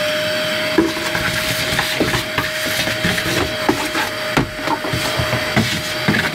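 Vacuum cleaner running with a steady motor whine and hiss as its nozzle sucks debris off a stripped sheet-metal car floor, with scattered knocks and rattles of the nozzle against the metal.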